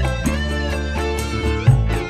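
Dangdut koplo music played loud through a concert PA system during a sound check: sustained deep bass notes under a wavering high melody, with a heavy low hit near the end.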